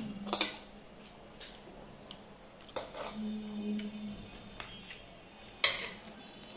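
A spoon clinking against dishes three times, the loudest clink near the end.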